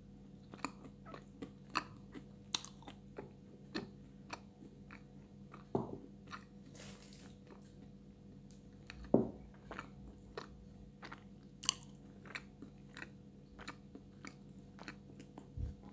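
Close-miked chewing of hard white edible clay (Astana 2): scattered crisp crunches and small mouth clicks, with two louder crunches about 6 and 9 seconds in.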